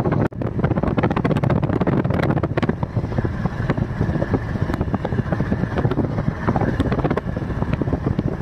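Steady wind rush and road noise from a moving Brezza SUV, heard from inside the car with the side window down. The sound briefly cuts out about a third of a second in.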